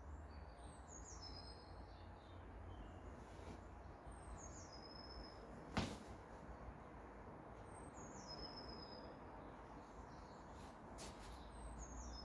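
A small songbird repeats the same short, high song phrase four times, about every four seconds, over faint background hiss. A single sharp knock sounds about halfway through.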